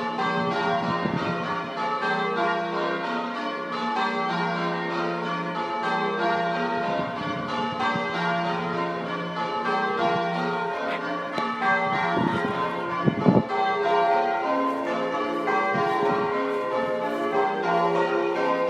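Ring of six church bells being rung, their strokes following one another in a continuous overlapping sequence. The tenor is a 13 cwt bell in F, and the front five are Pennington bells. A brief, sharp thump sounds about thirteen seconds in.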